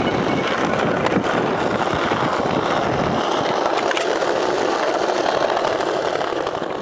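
Skateboard wheels rolling over paving stones with a steady rough rumble, broken by a couple of sharp clicks from the board, then fading out at the end.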